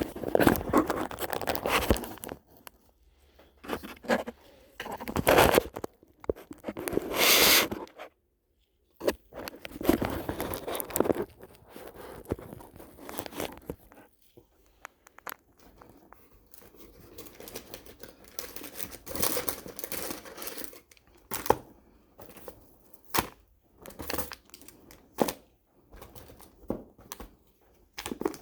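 Close handling noise of cardboard and packaging: rustling, crinkling and scraping in irregular bursts, with a brief total dropout about eight seconds in.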